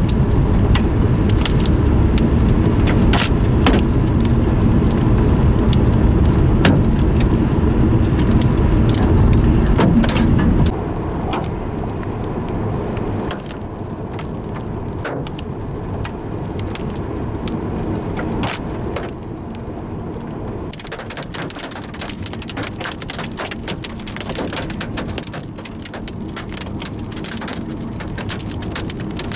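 Large hailstones, up to baseball size, and rain striking a moving vehicle's roof and windshield: sharp separate knocks over a steady patter, growing into a dense clatter in the last third. A heavy low rumble of the vehicle driving drops away about ten seconds in.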